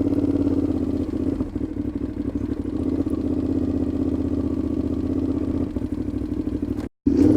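Aprilia Shiver 750 V-twin engine running steadily with a loud, open exhaust note. The exhaust is leaking at a loose joint between the silencer and the catalytic converter, which the rider could not fix by tightening the clamp. The sound cuts out for a split second near the end.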